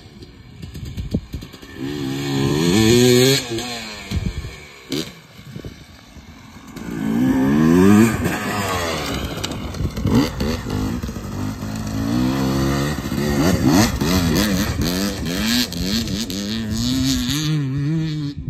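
GasGas EC300 two-stroke enduro bike's engine revving up and backing off again and again as the throttle is worked over the whoops, swelling loudest about three and eight seconds in as it nears.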